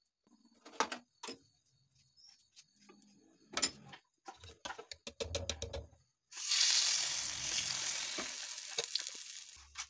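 Gram-flour batter sizzling as it is spooned into the hot, oiled cavities of a paddu pan, a loud hiss that starts about six seconds in and fades near the end. Before it, a few scattered clicks and knocks of utensils.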